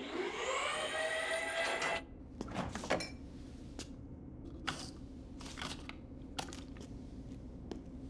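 Electric lift motor spinning up, its whine rising in pitch over about a second, holding steady, then cutting off about two seconds in. After it come scattered light clicks and knocks of a refrigerator door and a takeout container being handled.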